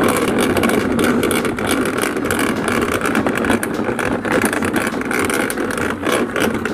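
Large plastic toy dump truck pushed along the ground, its plastic wheels rolling with a steady rumbling rattle.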